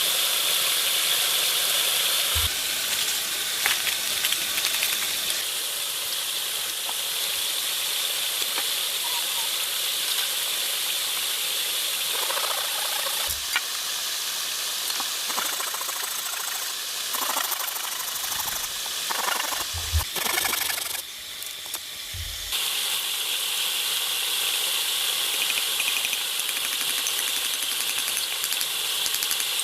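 Steady outdoor hiss, with a few soft low thumps and abrupt changes in the background where the sound is cut.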